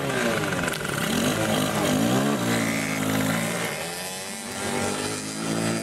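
Small quad bike engines revving, the engine note rising and falling as the quads ride past; it eases off a little about four seconds in.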